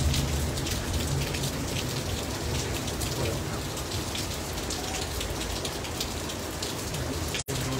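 Heavy rain falling steadily, with many sharp patters of close drops hitting hard surfaces. The sound cuts out for an instant near the end.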